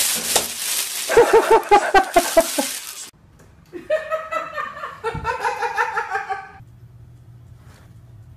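People laughing in short rhythmic bursts, first over a loud hissy background, then, after a cut about three seconds in, a second run of laughter that stops near six and a half seconds.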